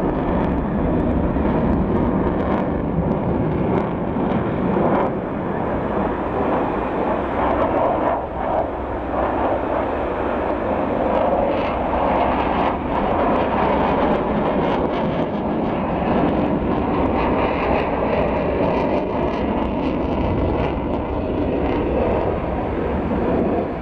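Jet noise from MiG-29 fighters flying overhead in a mock dogfight, their twin RD-33 turbofan engines giving a loud, steady rumble that shifts slightly as the jets manoeuvre.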